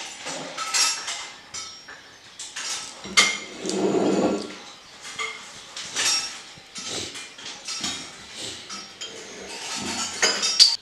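Clinks and knocks of a china cup, saucer, spoon and plate being handled on a wooden table, short separate sounds scattered throughout, with one longer, louder noise about three seconds in.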